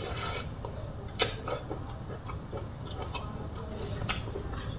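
Close-up mouth sounds of eating: a wet smack as fingers are sucked clean at the start, then scattered soft clicks and smacks of chewing.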